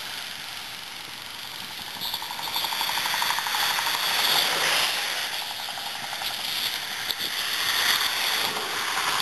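Spinning fishing reel clicking rapidly as a hooked snook is fought, over a steady hiss of wind on the microphone.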